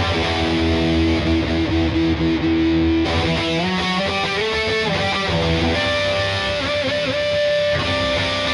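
Yamaha Pacifica 012 electric guitar played with distortion: a lead line of long held notes, bent and shaken with vibrato, over a full low end.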